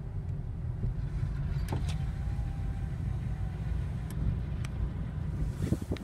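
Steady low rumble of a car's engine and tyres heard inside the cabin while driving, with a few light clicks and knocks.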